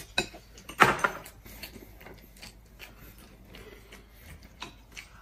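A loud, wet slurp of rice noodles in sesame-paste broth about a second in, followed by quieter eating noises and small clicks.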